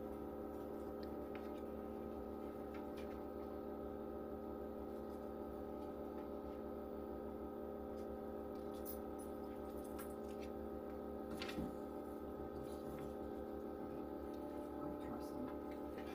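Steady hum of a machine running in the room, several held tones sounding together like a chord. Faint clicks and paper rustles now and then, the clearest about eleven and a half seconds in.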